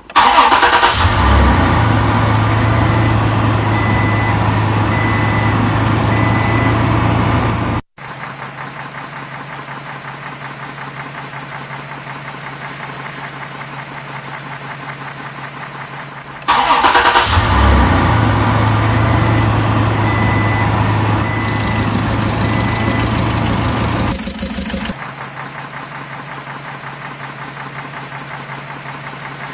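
Electronic engine start-up and running sound from a toy dump truck's push-button sound module, played twice, each time about eight seconds long and cutting off suddenly. Between the two plays there is a quieter steady hum.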